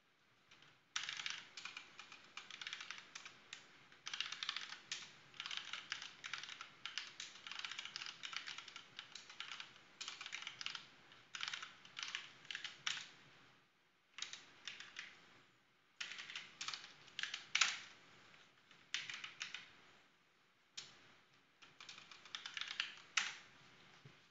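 Typing on a computer keyboard: runs of quick keystrokes starting about a second in, broken by a few short pauses.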